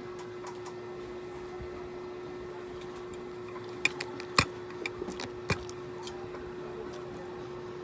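A steady low hum runs throughout, with a few short sharp clicks and taps of eating at the table clustered around the middle, the loudest about halfway through.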